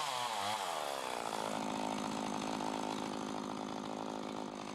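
Two-stroke chainsaw making the felling cut on a leaning tree: its engine pitch falls over the first second or so as it loads up, then runs steadily at the lower speed.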